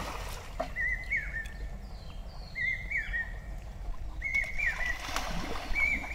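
A songbird singing the same short warbling phrase over and over, four times, about every second and a half. Under it, muddy water sloshes as metal basins scoop through the pond.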